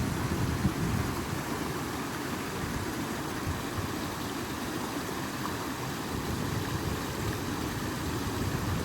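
Steady rush of running stream water, with a low rumble underneath.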